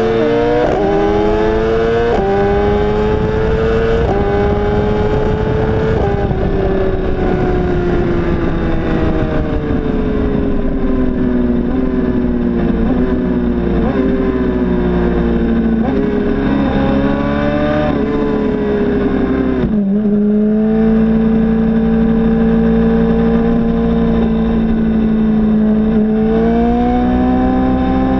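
Sportbike inline-four engine, the BMW S1000RR's, pulling hard under full throttle with its pitch climbing in steps through quick upshifts, then falling as the throttle is rolled off. It pulls through the gears again, drops sharply about twenty seconds in, holds a steady pitch, and climbs again near the end, with wind rush on the microphone throughout.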